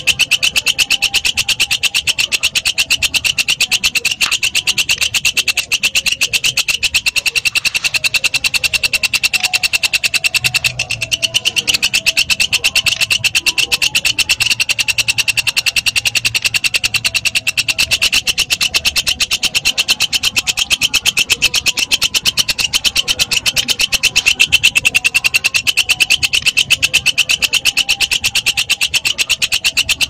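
Walang kecek, a bush cricket (katydid), singing a continuous, rapid pulsed trill with a high, ringing pitch, unbroken throughout.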